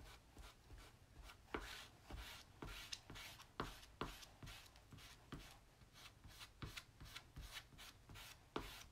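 Small squeegee scraping chalk paste across a mesh transfer stencil on a chalkboard. It makes faint, short, irregular strokes, about three a second.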